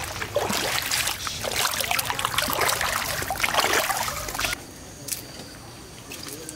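Feet wading through shallow muddy floodwater, a busy run of splashing and sloshing that cuts off suddenly about four and a half seconds in, leaving only faint background.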